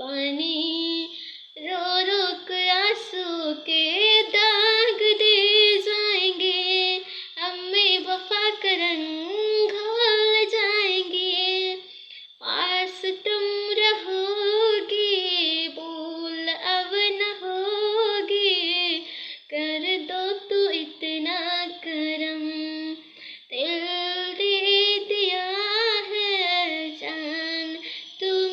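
A boy singing alone without accompaniment in a high voice, with wavering, ornamented notes in phrases of a few seconds separated by short pauses.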